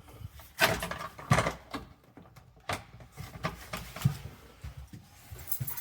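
A series of sharp wooden and metal knocks and clicks, about half a dozen spread irregularly, as the cupboard door is shut and its newly fitted locking bolt is worked into place.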